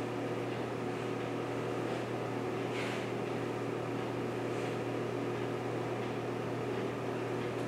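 Steady low hum of a fan or ventilation running, with one faint click about three seconds in.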